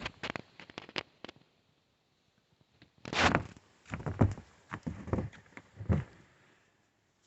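Handling noises from unboxing a portable speaker: irregular clicks, knocks and thunks with short rustling bursts of packaging. The loudest is a rustling burst about three seconds in, followed by a run of knocks over the next few seconds.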